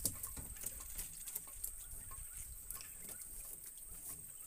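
Scattered light taps and rattles from a wire-mesh fish trap being handled with caught fish moving inside, over a steady high whine.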